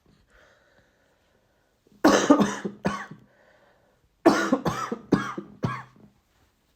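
A person coughing with a cold: a faint breath in, then a fit of several coughs about two seconds in, a short breath in, and a second fit of several coughs a couple of seconds later.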